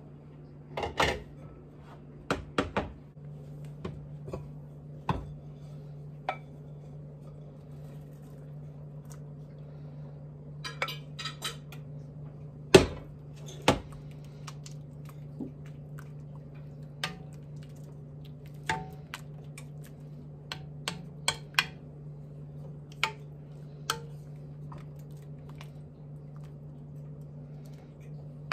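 Metal spoon and knife clinking and scraping against an enameled cast-iron Dutch oven and a ceramic mixing bowl as chopped ham is scraped in and stirred through thick bean soup. The clinks come irregularly, the loudest about halfway through, over a steady low hum.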